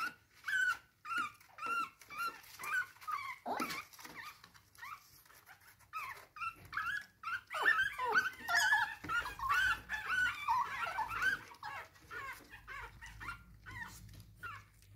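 Chihuahua puppy whimpering in short, high-pitched cries that rise and fall, over and over, coming thick and fast in the middle: the distress crying of a puppy that cannot climb back into its whelping box.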